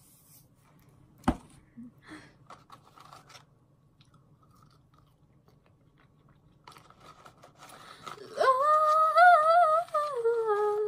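A single sharp knock about a second in, then faint chewing of McDonald's fries. In the last few seconds a woman hums a loud, wavering 'mmm' of enjoyment with her mouth full, settling on a lower note at the end.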